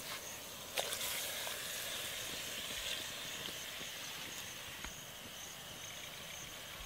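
Boiling water and oil in a clay pot hissing and sizzling as a whole chicken is lowered in, with a light knock about a second in. The hiss is strongest for the first few seconds, then settles to a steady simmer.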